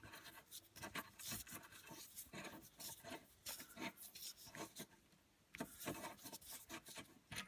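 Irregular scraping and clicking of a hand tool on metal as a broken-off screw is worked out of an old wood stove's door.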